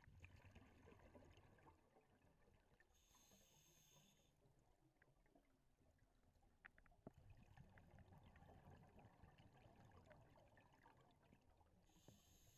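Near silence underwater: a faint low rumble and crackle, with a few small clicks and a brief hiss twice, about three seconds in and near the end.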